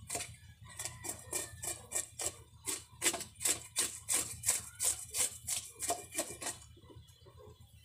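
Large knife scraping the scales off a whole grouper on a wooden board: quick rasping strokes, about four a second, that stop near the end.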